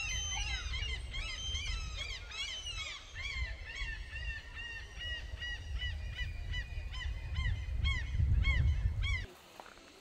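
Many birds calling together: short, arched, high calls repeated rapidly and overlapping, over a low rumble that stops abruptly about nine seconds in.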